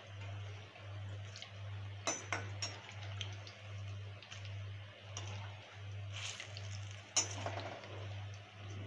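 Pakoras deep-frying in hot oil in a metal kadhai, a soft steady sizzle, with a few clinks of a slotted metal spoon against the pan about two seconds in and again around six to seven seconds, the loudest about seven seconds in. Underneath runs a low hum that pulses about one and a half times a second.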